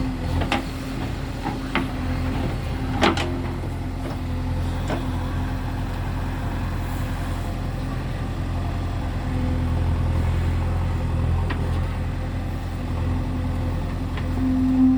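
Heavy machinery engine running steadily with a low drone. A few sharp knocks cut through it, the loudest about three seconds in.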